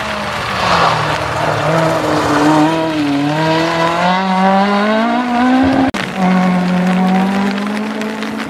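Rally car engine revving hard as the car accelerates past, its pitch climbing steadily for several seconds, with a rush of tyre and gravel noise near the start. The sound breaks off abruptly about six seconds in, and an engine note comes back, held high and fairly steady.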